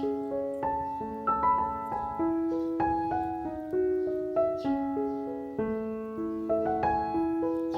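Background piano music: a gentle melody over held chords, notes struck and left to ring.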